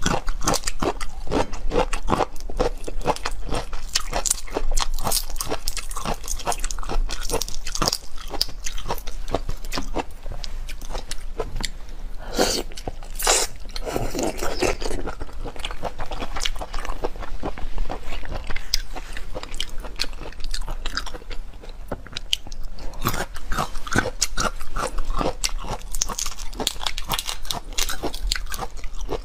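Close-miked eating: crunching and wet chewing, with the crackle of large red prawn shells being pulled apart by hand.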